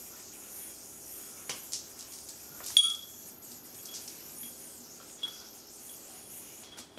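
Freehand (5A) yo-yo play with a Magic YoYo Z01 Focus bi-metal yo-yo and a dice counterweight: a few light clicks of string and counterweight, and one sharp metallic clink about three seconds in that rings briefly.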